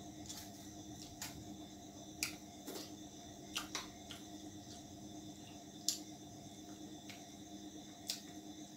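Person eating chicken curry by hand: scattered short wet clicks and smacks of chewing and fingers picking at food in a steel bowl, one every second or so, over a steady faint hum.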